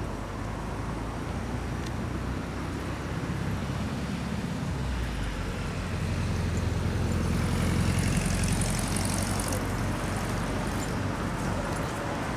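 Low rumble of motor traffic, swelling for a few seconds about halfway through, as if a vehicle passes, then settling back.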